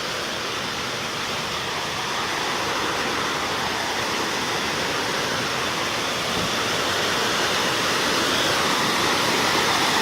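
Waterfall: a steady rush of falling water that slowly grows louder.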